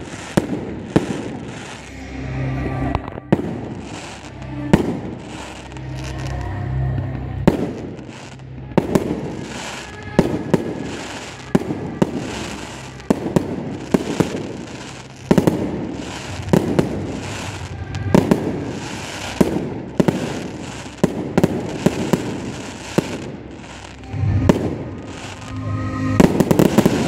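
Fireworks display: aerial shells bursting in quick succession, a sharp bang and a rushing swell about every second or so, with a heavier cluster of bursts near the end.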